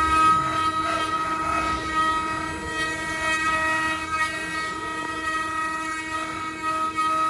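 Spindles of a multi-head 4-axis CNC wood router running as they carve wood: a steady whine of several held tones over rough cutting noise.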